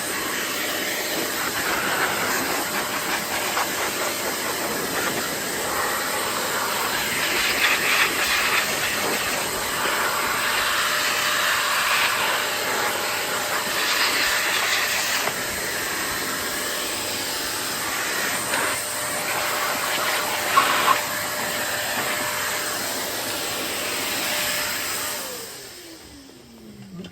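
Vacuum cleaner running with its attachment worked over a stroller's fabric, the suction noise changing as the nozzle moves; near the end it is switched off and its motor winds down with a falling whine.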